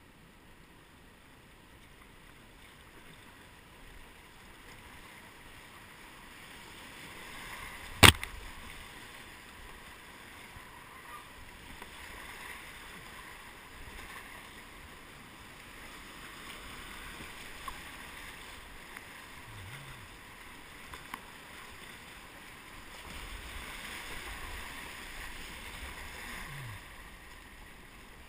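River rapids rushing and splashing around a kayak, heard up close from the boat; the water noise swells through the rougher stretches. A single sharp, loud knock sounds about eight seconds in.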